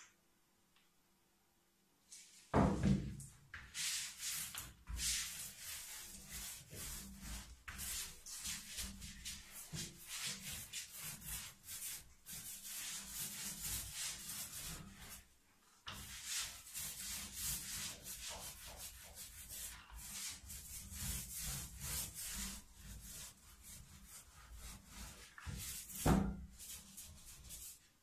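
A stiff brush scrubbing back and forth over an oil-painted gum-oil print, cleaning the excess oil paint off the first layer. Fast rubbing strokes start a couple of seconds in and pause briefly about halfway.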